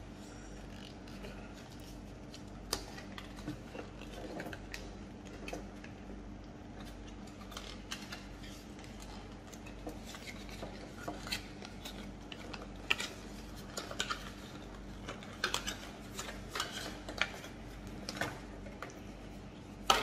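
Irregular small clicks and rustles as the coiled power cord of a Dyson Supersonic hair dryer is unwrapped and handled, the cable and its plug knocking lightly, busier in the second half, over a faint steady hum.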